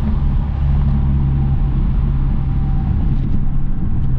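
Modified Audi S3's turbocharged four-cylinder engine running steadily while driving, heard from inside the cabin with road noise.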